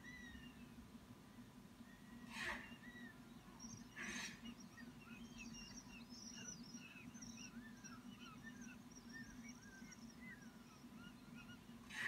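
Two short, harsh squeals from hawk nestlings scrambling over food on the nest, about two and a half and four seconds in. Faint chirps of small birds run through the background over a steady low hum.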